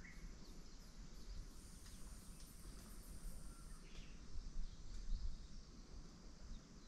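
Quiet lakeside outdoor ambience: faint scattered bird chirps and a thin high insect-like buzz lasting about two seconds in the middle, over a low steady rumble.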